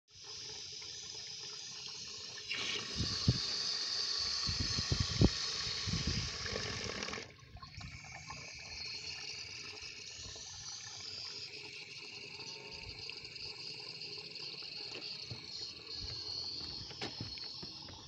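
Water hissing as it runs in through the brass float (ball) valve into a solar water heater's assistant tank. It is louder and splashier, with a few low thumps, from about two and a half seconds in to about seven, then settles to a quieter steady hiss.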